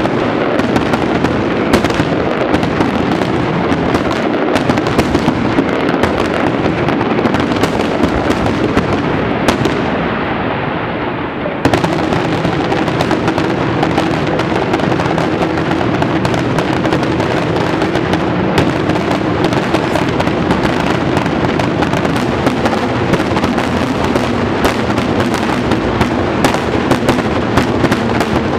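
Fireworks display going off in a dense, continuous barrage of bangs and crackles. It thins briefly about ten seconds in, then comes back suddenly at full strength.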